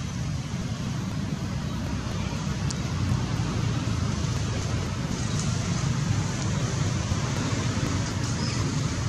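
Steady low rumble with an even hiss over it, unchanging throughout; outdoor background noise with no animal calls standing out.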